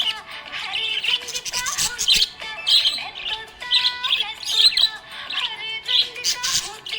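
Budgerigar chirping and chattering in a continuous stream of short, quick calls with rapid pitch glides.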